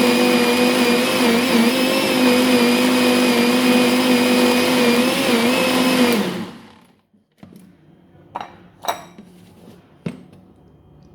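Electric kitchen mixer motor running steadily at one speed, mixing pancake batter. About six seconds in it is switched off and winds down. A few light clicks and knocks follow.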